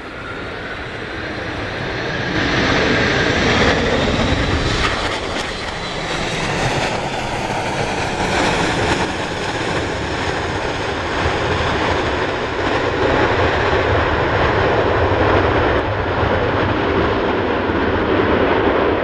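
MD-83 airliner's tail-mounted Pratt & Whitney JT8D turbofans running loud during the landing roll-out, with the thrust reversers deployed to slow the jet. The jet noise builds over the first few seconds and then holds steady.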